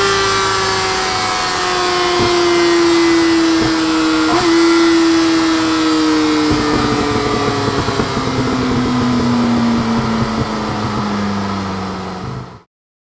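A 2004 Yamaha YZF-R1's inline-four engine, breathing through Scorpion silencers, winds down off the throttle on a dyno roller. Its pitch falls steadily from about 12,000 rpm to roughly half that, with some crackling midway. The sound cuts off abruptly near the end.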